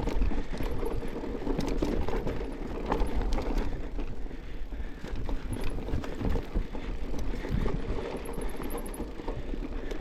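Mountain bike riding a rough dirt trail: tyres rumbling over the ground, with frequent knocks and rattles from the bike, and wind buffeting the microphone.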